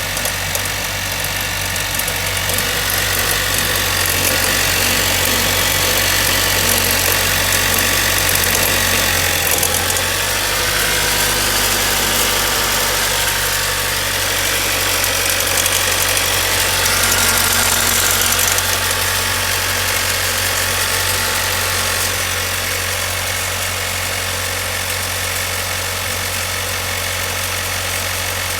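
Car engine running with the noise of its accessory drive belt and tensioner, which the owner suspects comes from a bad belt tensioner. The tone shifts about ten seconds in and glides up and down for a while before settling.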